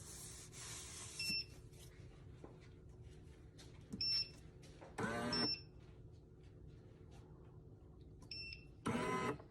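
Café Affetto espresso machine beeping short high beeps several times as its buttons are pressed, with two louder, brief pitched buzzes from the machine about five and nine seconds in, over a steady low hum.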